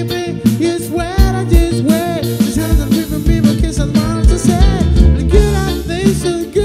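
A live band playing: a man singing into a microphone over a full band of drums with a steady beat, electric guitar, electric bass and keyboard.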